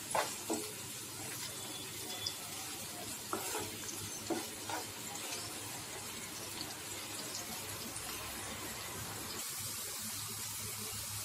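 Chopped onions and green chillies sizzling in hot oil in a nonstick frying pan, with a wooden spatula scraping and tapping against the pan a few times in the first half as they are stirred. After that only a steady sizzle.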